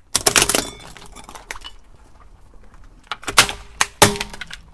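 Car tyre crushing black plastic kitchen utensils (a spatula and spoons) on asphalt: a burst of sharp cracking and snapping near the start, then two more cracks about three and a half and four seconds in.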